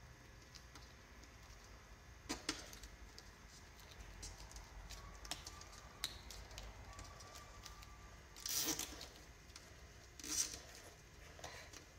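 Plastic zip tie being threaded and pulled tight around cables: faint scattered clicks and handling ticks, with two short rasping zips of the tie's ratchet in the last few seconds.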